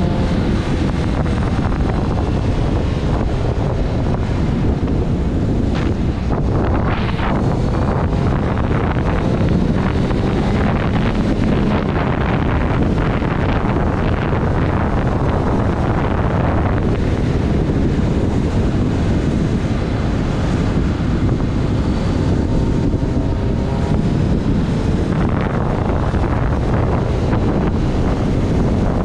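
Heavy wind buffeting on the microphone of a moving motorcycle, with the bike's engine running underneath at road speed. The engine pitch shifts a little now and then with the throttle.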